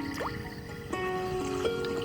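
Background music: a melody of held notes stepping between pitches, with a quick upward slide just after the start.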